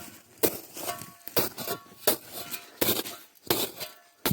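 A metal digging tool striking into earth and roots again and again, about one blow every 0.7 seconds, some blows leaving a short metallic ring, as an armadillo burrow is dug out.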